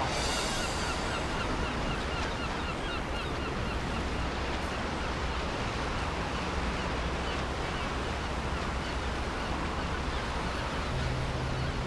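Waterfront ambience of sea water washing and lapping, with birds chirping repeatedly over it during the first few seconds. Music comes in near the end.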